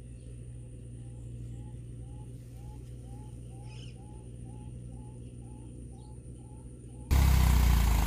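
A bird repeats a short hooting note about two times a second over the low, steady rumble of an idling tractor engine. About seven seconds in, a much louder engine sound cuts in abruptly.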